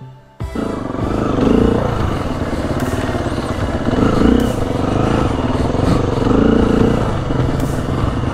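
Four-stroke dirt bike engine running under throttle on a trail, the level rising and easing repeatedly as the rider works it. It starts abruptly about half a second in.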